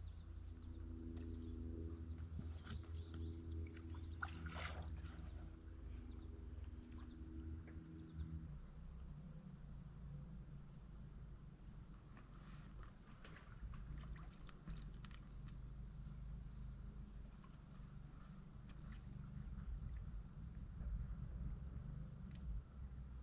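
A steady, unbroken, high-pitched insect chorus. Beneath it a low hum carrying a few steady tones stops about eight seconds in, and faint scattered ticks come and go.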